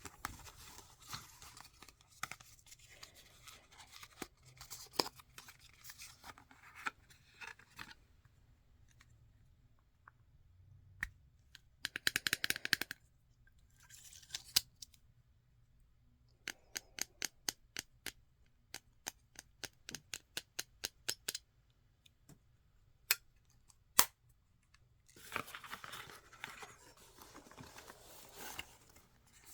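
Makeup packaging being unwrapped and handled: crinkling and tearing of wrapping, a short rapid rasping click-run about twelve seconds in, then a run of sharp light taps about three a second, two louder single clicks, and more crinkling near the end.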